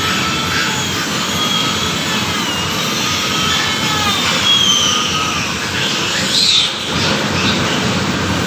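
Piglet squealing in long, high-pitched, arching screams, the distress cry of a piglet held down for teeth clipping, louder for a moment near the end.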